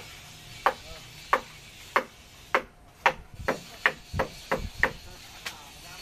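Hammer blows driving nails, about a dozen sharp ringing strikes. They come roughly every half second at first, then quicken to about three a second in the second half.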